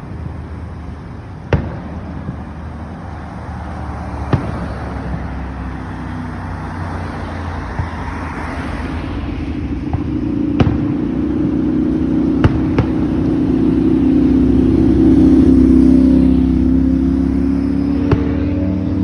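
Distant fireworks going off as a handful of sharp single bangs, several seconds apart, over a motor vehicle's engine hum that grows louder through the second half and is loudest near the end.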